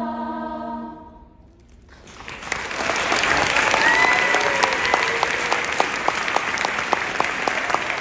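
A large youth choir with piano holds its final chord, which ends about a second in; after a brief hush the audience breaks into applause, with one pair of hands clapping close by about twice a second and a cheer rising through it about four seconds in.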